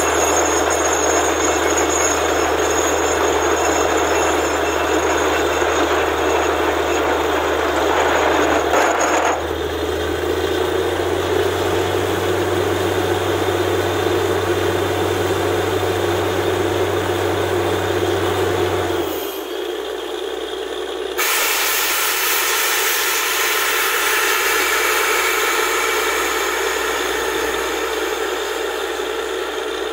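Borewell drilling rig running, a loud steady rushing noise over a low engine hum. The sound shifts abruptly twice, and the engine hum drops out about two-thirds of the way in.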